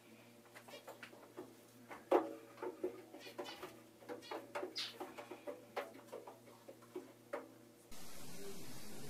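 A cat making a quick, irregular string of short chirping calls, several a second, over a faint steady hum. Near the end the sound cuts to a steady hiss.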